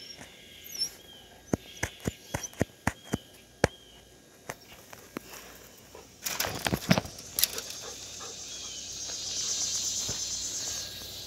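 A run of sharp clicks and taps, then a brief clatter about six seconds in, and a high insect buzz that swells near the end.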